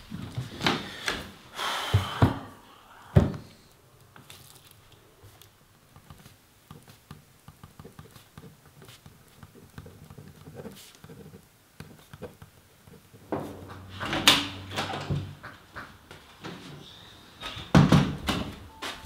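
Handling sounds in a small room: a cluster of knocks and thumps in the first few seconds, the loudest a sharp thud about three seconds in, then a quiet stretch of faint small clicks. Near the end come more handling noises and a wooden door being opened.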